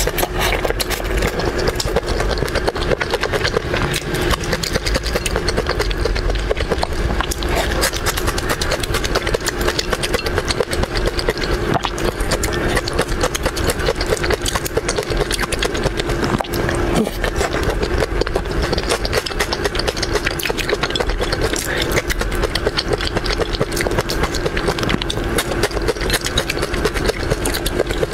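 Close-miked eating of crab and shrimp: a dense run of wet chewing and small cracking clicks of shell, over a steady low hum.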